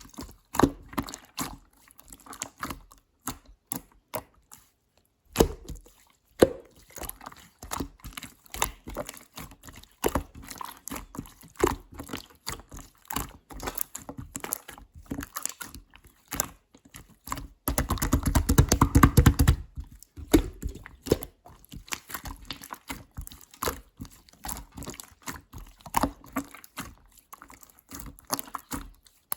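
Clear slime being squished and stretched by hand: a continuous run of short sticky clicks and small pops, with a louder, denser stretch of squelching lasting about two seconds about two-thirds of the way through.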